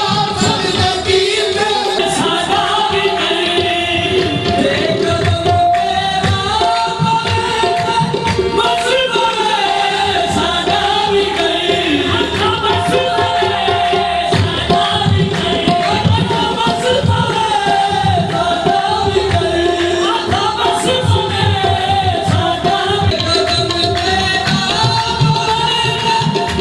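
Live qawwali music: tabla drumming a steady, driving rhythm under a sung melody, running on without a break.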